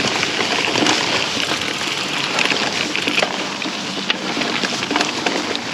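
Mountain bike being ridden: knobby tyres rolling over dirt and gravel in a steady rushing hiss, with scattered clicks and rattles from the bike and wind on the helmet camera's microphone.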